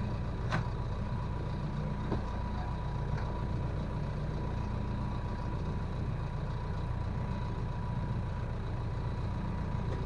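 Boat engine idling steadily with a low hum, and a couple of light knocks about half a second and two seconds in.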